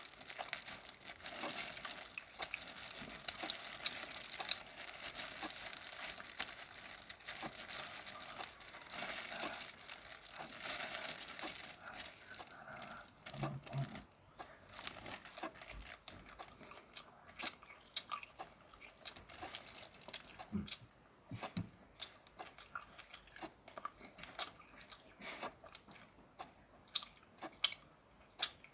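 Steamed shrimp being peeled and eaten close to the microphone. For about the first half there is dense crackling and tearing of shells. After that come sparser, sharper clicks and crunches of chewing and biting.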